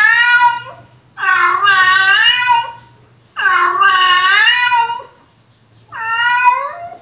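Recorded cat meows played back through a device speaker: a long meow ending just after the start, then three more long, drawn-out meows, each one to two seconds, with short pauses between them.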